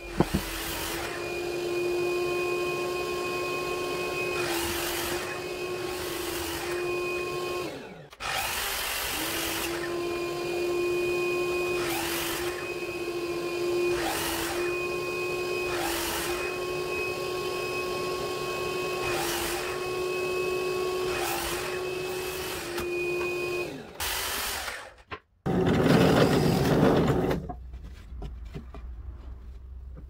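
Sliding miter saw running in two long stretches, its steady whine dipping each time the blade cuts through a wooden board, over and over, and winding down quickly at the end of each stretch. Near the end comes a louder rough burst lasting about two seconds.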